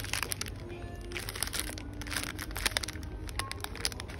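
Plastic biscuit wrapper crinkling in a hand, in many quick sharp crackles, over background music.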